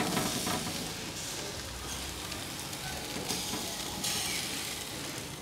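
Chicken breast tikka sizzling on a hot charcoal barbecue grill as it is basted with marinade juices, a steady hiss.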